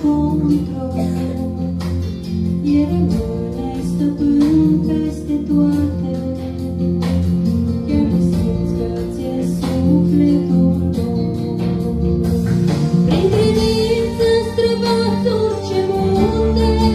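A woman singing a Christian song into a microphone over a guitar accompaniment, heard through the hall's sound system. She sings a long rising note that she holds near the end.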